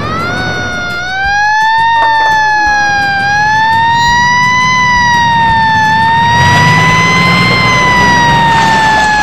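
Fire truck siren wailing: it winds up in pitch at the start, then rises and falls slowly, with a low rumble underneath.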